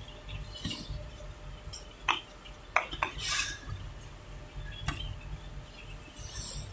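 Egg tray drying line's metal mesh conveyor running with a low steady hum. Sharp metallic clinks come a few times: once about two seconds in, a quick pair near three seconds, and once near five seconds.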